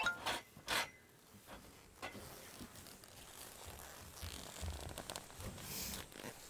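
Tent fabric and poles being handled while a tent is put up: two sharp rasping strokes in the first second, then quieter rustling.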